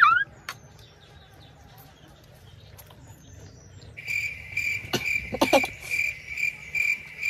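A short excited shout right at the start, then people eating noodles, with a couple of slurps about five seconds in. From about four seconds in a high chirping trill, pulsing evenly like a cricket's, runs alongside and cuts off suddenly.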